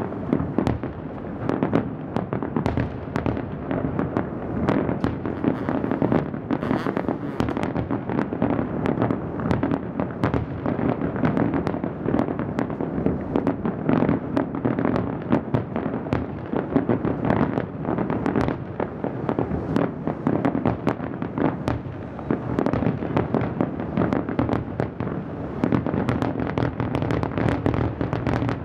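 Aerial fireworks shells bursting in a dense, continuous run of overlapping bangs and crackles, many a second, with no let-up.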